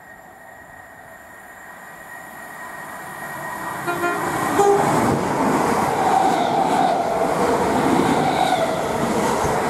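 Class 321 electric multiple unit train approaching and passing close by, growing steadily louder for about five seconds and then running past loud and steady on the rails. A short horn toot sounds about four seconds in.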